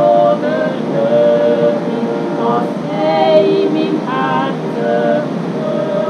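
Two women singing together in harmony, held notes changing every half second or so, accompanied by a small accordion.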